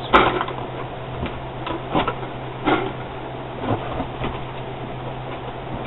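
Plastic-bagged packaging being set down and a cardboard box being rummaged through: a run of short rustles and knocks, thinning out after about four seconds.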